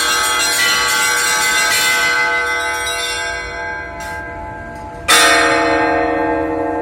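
Russian church bells ringing: a peal of several bells with rapid strokes on the small bells that die away over a few seconds, then one loud stroke of a larger, deeper bell about five seconds in, ringing on and slowly fading.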